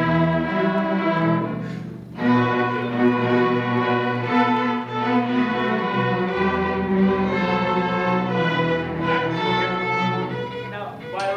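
A student string orchestra of violins, violas and cellos playing together in sustained bowed notes. There is a brief break about two seconds in, and the playing stops near the end.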